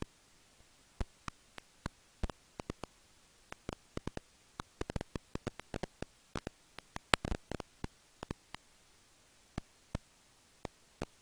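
Irregular sharp clicks and ticks from serotine bats in their roost behind a wall vent, sparse at first, then crowding together in a quick flurry in the middle before thinning out again.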